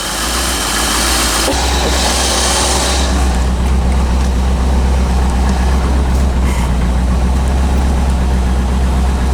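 1985 Chevrolet Corvette's V8 engine idling steadily just after a cold start.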